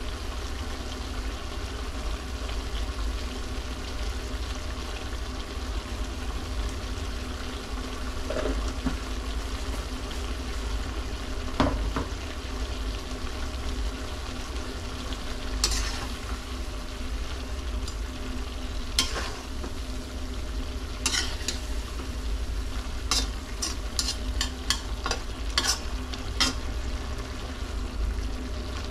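Goat liver frying in a pan, stirred with a utensil that scrapes and clicks against the pan in short strokes, more often in the second half, over a steady low hum.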